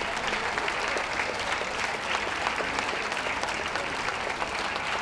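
Crowd applauding steadily: many hands clapping at once.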